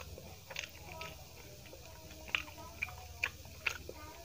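Close-miked eating: chewing with wet mouth clicks and smacks, several sharp ones in the second half, over a low steady hum.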